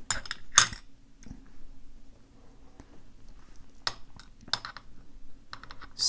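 Small metal lock parts clicking and clinking as the key pins are tipped out of a euro cylinder's brass core onto a metal tray. There are a handful of separate sharp clicks, the loudest about half a second in.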